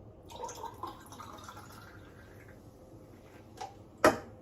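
Seltzer being poured into a glass, a soft splashing, fizzing pour over the first couple of seconds, then a single sharp knock near the end.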